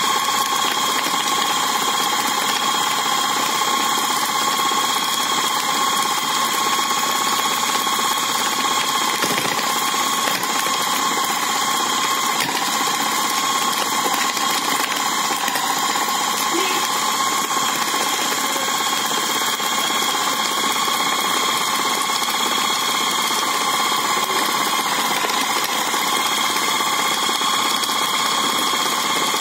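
Electric food chopper's motor running steadily with a constant whine, its blade grinding chicken meat into meatball paste.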